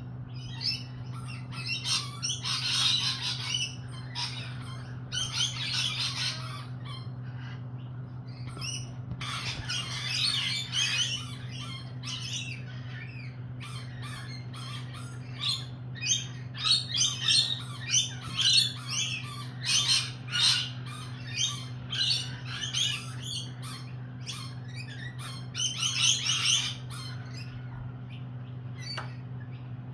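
Lorikeets screeching and chattering, in repeated bursts of harsh calls that come thickest from about halfway through.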